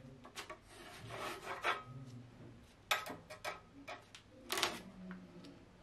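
Knife and hand scraping and rubbing self-adhesive contact paper along the edge of a desktop while trimming it, in several short strokes, the sharpest about three and four and a half seconds in.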